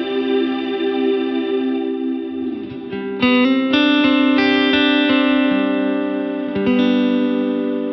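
Electric guitar chords played through a Line 6 M9's reverb, whose depth and mix are set by an expression knob. The chords ring out long, with new chords struck about three seconds in and again near the end.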